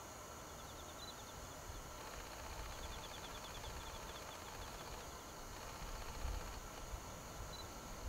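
Outdoor rural ambience: a low wind rumble on the microphone, with two runs of faint, rapid, high-pitched trilling, in the first five seconds, and a couple of louder gusts near the end.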